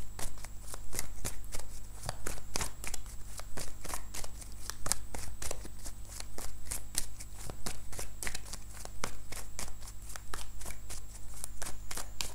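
A deck of tarot cards being shuffled by hand: a steady, irregular run of quick card slaps and flicks, several a second.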